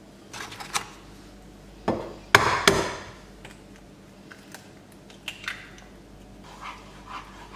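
Kitchen knocks and clatter while eggs are taken up and cracked at the hob: two sharp knocks about two seconds in, the second the loudest with a short ring, then a few small taps.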